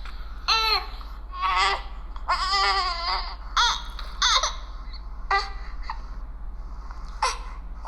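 Young infant crying in short, high-pitched cries of a second or less, broken by pauses, about eight in all. The pediatrician reads this choppy cry as a sign that the baby wants to bring up milk and needs burping.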